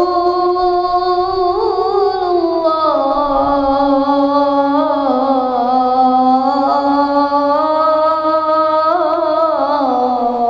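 A child's voice chanting the adhan in the Kurdi melodic mode: one long, unbroken melismatic phrase with wavering ornaments, the pitch sliding down, rising again about nine seconds in, then falling away at the end.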